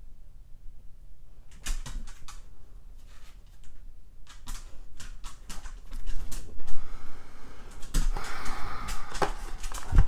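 A dog moving about and fidgeting close to the microphone. First comes a scattered run of clicks and knocks, then, from about six seconds in, a louder stretch of rustling, with a sharp knock near the end.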